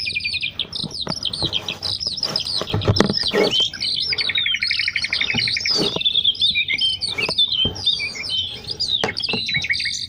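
Many small birds chirping and singing at once, a dense chorus of overlapping short whistles and tweets, with a fast trill about four seconds in. A few brief knocks sound under it.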